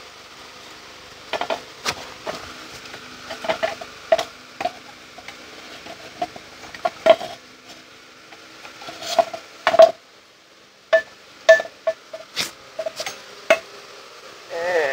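Irregular metallic clinks and knocks as a Jeep Cherokee KL's rear coil spring is worked free of the lowered lower control arm and lifted out by hand, with a quick run of clinks late on.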